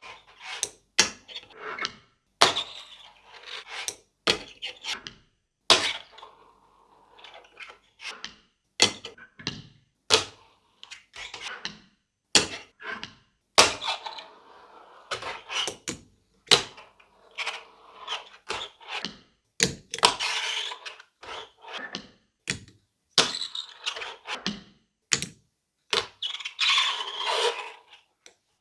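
Fingerboard tricks: a string of sharp clicks and clacks as the tiny deck's tail pops and the board lands, with stretches of small wheels rolling between them. The wheels squeak a little.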